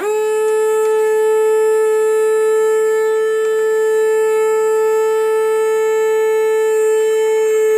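Small electric bilge pump in a model boat's hull switched on, its motor giving a loud, steady whine that starts abruptly.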